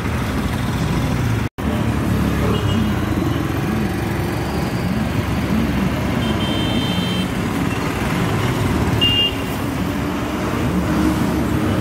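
Steady road traffic noise as military trucks' diesel engines run past along with motorcycles and cars. The sound cuts out for an instant about a second and a half in.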